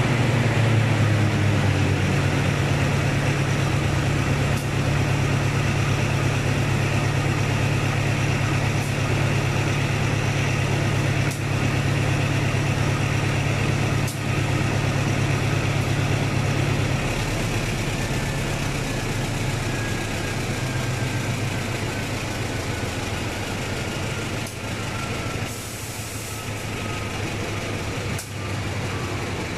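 Diesel-electric locomotive engine idling with a steady low hum that weakens partway through. There are a few light knocks and a brief hiss near the end.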